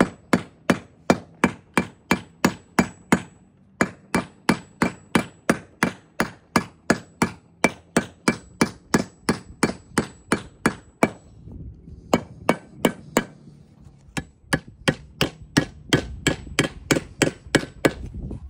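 Steel hammer driving a nail through a roof rake tile: quick, evenly spaced blows at about two to three a second, with a thin metallic ring, broken by a few short pauses.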